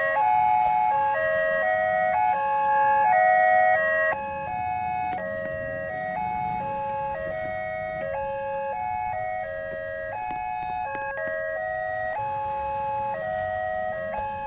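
Indonesian railway level-crossing warning siren playing a repeating electronic melody of short stepped tones, each about half a second long. It gets somewhat quieter about four seconds in.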